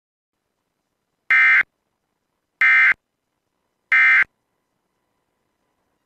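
Emergency Alert System SAME digital data tones: three short, identical bursts about a second and a quarter apart. This is the end-of-message code sent three times to close an EAS alert.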